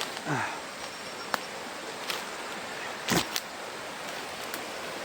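Steady rush of a nearby rocky jungle river. Just after the start there is a short, low, falling voice sound, then a few light clicks, and a louder knock about three seconds in.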